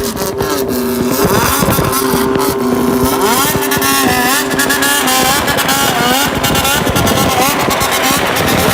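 Inline-four motorcycle engines on aftermarket exhausts doing a bōsōzoku-style 'call': the throttle is blipped over and over, so the exhaust note rises and falls in quick repeated sweeps. Under the sweeps there is a steadier drone from more than one bike.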